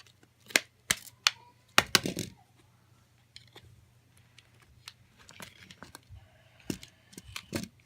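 Sharp clicks and clacks of a dummy phone's plastic and metal parts being pried and snapped apart by hand, several in the first two seconds and two more near the end, with faint scraping and crinkling between.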